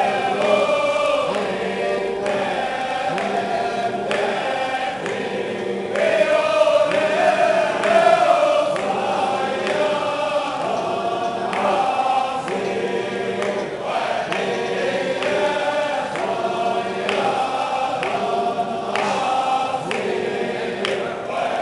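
Large congregation of men performing Sufi zikr: rows chanting a devotional poem in unison over rhythmic, repeated calls of the divine names "Allah" and "Hu", with a steady pulse of about one call a second.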